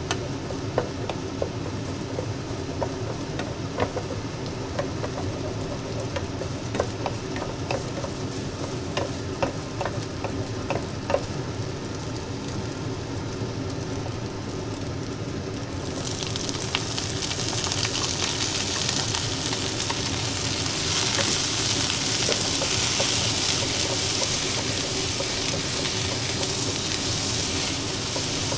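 Wooden spatula scraping and tapping a nonstick wok as scrambled egg is stir-fried, in many sharp clicks over a steady low hum. About halfway through a loud sizzle starts and keeps going as yellow chives are stir-fried in the hot oil with the egg.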